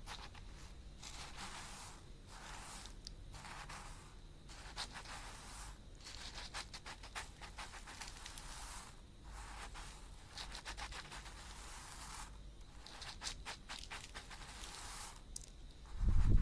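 Close-miked ASMR scratching and rubbing strokes, each lasting one to two seconds with fine crackles in them, separated by short pauses. A sudden loud low thump comes right at the end.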